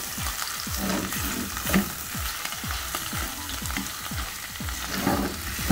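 Shredded boiled chicken and chopped garlic sizzling in hot oil in a frying pan, stirred with a spatula in repeated strokes, about two to three a second.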